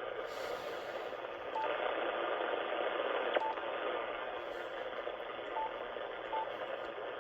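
Ham radio receiver's speaker giving a steady static hiss: wideband noise filling the 80-metre band, the interference the owner suspects comes from some kind of power supply. Four short high beeps and a click come through during it.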